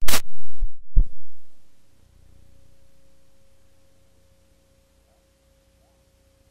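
A sudden loud pop, then a low thump about a second in, followed by a faint steady hum tone. This is signal noise at an edit in the recording, not a sound from the scene.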